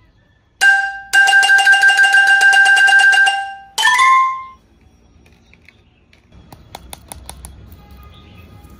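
Added electronic sound effects: a short beep, then a loud, steady, rapidly fluttering electronic tone lasting about two and a half seconds, cut off by a brief higher chime. After a lull, a few faint clicks of a plastic slime tube being handled.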